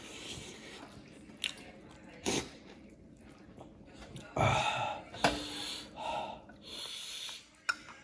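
Chewing and breathy mouth sounds of a man eating soft buckwheat dhido with greens by hand, with a few sharp taps against the metal bowl.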